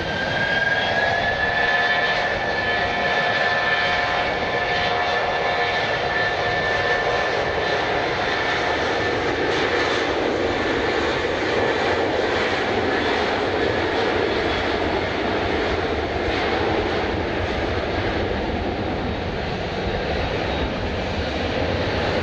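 Jet airliner engines: a whine that rises in pitch over the first couple of seconds and then holds, under a steady loud roar.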